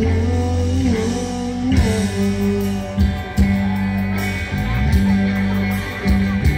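Live rock band playing: electric guitars holding chords over bass and drums, with regular drum hits, heard through the PA from the audience.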